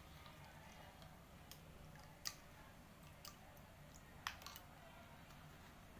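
Near silence with a faint low hum and about four light, sharp clicks and taps of kitchen utensils, the loudest about two seconds in and again about four seconds in.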